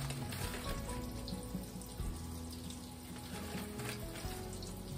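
Cornmeal-coated squash slices sizzling steadily as they fry in hot oil in a skillet, with background music under it.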